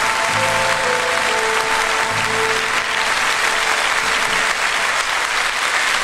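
Audience applauding over the last held notes of the song's accompaniment, which die away about halfway through while the clapping keeps on.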